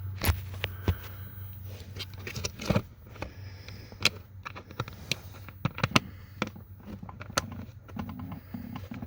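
Irregular plastic clicks, taps and scrapes as cabin air filters and a plastic filter door are pushed into a truck's HVAC housing, with a steady low hum underneath.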